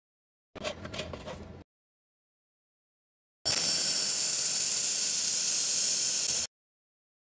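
Handheld laser welding gun welding a steel square-tube joint: a loud, steady hiss that starts abruptly about three and a half seconds in and cuts off sharply three seconds later. Before it, about half a second in, comes a short, quieter rustling noise.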